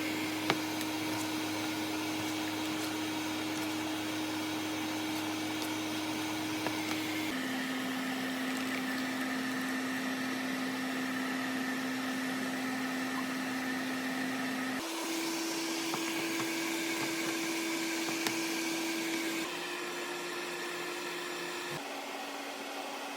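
Kitchen appliance humming steadily, with a motor or fan tone that shifts to a new pitch at several abrupt cuts.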